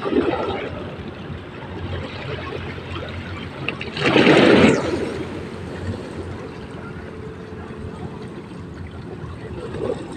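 Sea water lapping and splashing at the shoreline, with one louder splash about four seconds in.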